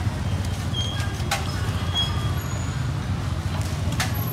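Steady low rumble of street and market background noise, with a couple of light clicks.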